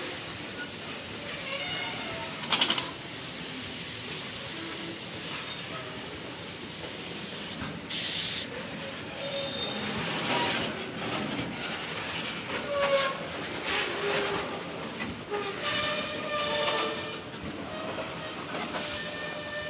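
Train running with a steady rushing wheel noise and short higher tones that may be wheel squeals. There is a sharp loud crack about two and a half seconds in, and louder surges of noise around 8, 10 and 16 seconds.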